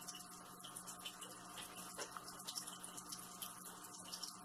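Quiet room tone: a steady hiss with a faint low hum and a few light clicks.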